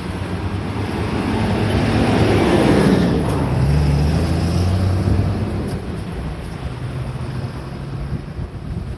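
A vehicle passing close by, its noise swelling to a peak about three seconds in and then fading, over a low steady engine hum.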